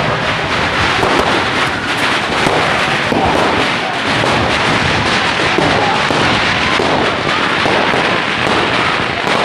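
A string of firecrackers going off in a rapid, unbroken crackle, with voices shouting under it.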